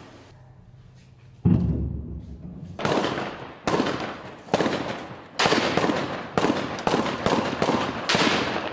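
A single heavy boom about a second and a half in, then a string of about ten sharp gunshot cracks, each echoing off the surroundings, coming faster toward the end to roughly two a second.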